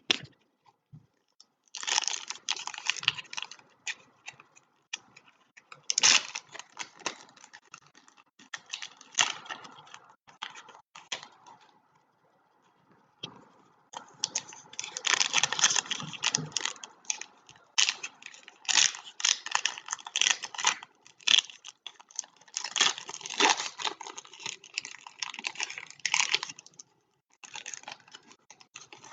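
Foil trading-card pack wrappers being torn open and crinkled in the hands, in irregular bursts of rustling and crackling with short pauses between.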